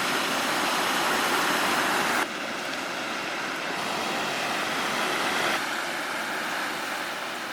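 Steady rush of ocean surf breaking, which drops suddenly to a softer, duller rush about two seconds in.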